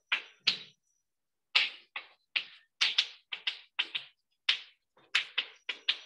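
Chalk tapping and scratching on a chalkboard as an equation is written: many short, sharp strokes in quick irregular runs, with a pause of about a second near the start.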